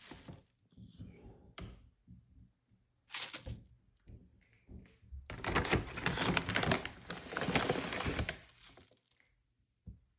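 Loading a drip coffee maker by hand: several plastic thunks and knocks from its parts being handled and shut, and about three seconds of rustling hiss near the middle as grounds or water go in.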